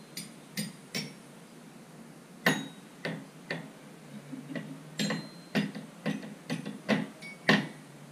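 A baby tapping a toy xylophone with a wooden mallet: about a dozen irregular strikes, some leaving a short ringing note, the loudest about two and a half seconds in and near the end.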